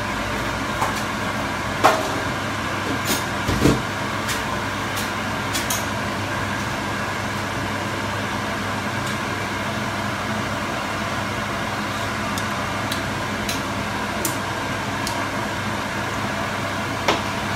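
A steady whirring hum with scattered light clicks and taps of a metal utensil in a stainless steel frying pan of noodles. Most of the taps fall in the first six seconds, with a soft knock at about four seconds.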